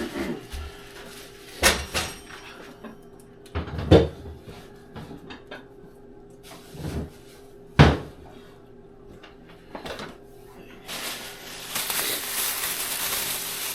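Cupboard doors and kitchen items knocking and clunking, several separate thumps. About eleven seconds in, a steady hiss starts.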